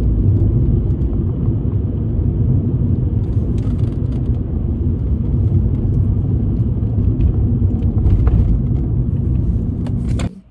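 Steady low rumble of a car on the move, with a few faint clicks; it cuts off abruptly near the end.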